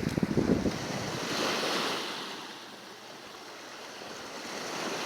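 Sea waves washing onto the shore: a rush that swells about a second and a half in and fades away, with another beginning to rise near the end. Wind buffets the microphone briefly at the start.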